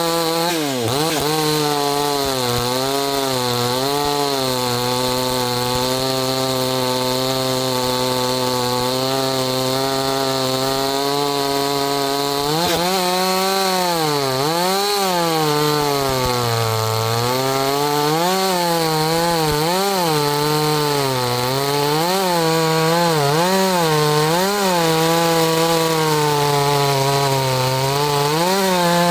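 Two-stroke gas chainsaw cutting maple firewood rounds. For the first twelve seconds or so it runs at a steady loaded pitch through one long cut. After that, its pitch dips and recovers about once a second as the chain is leaned into the wood and eased off.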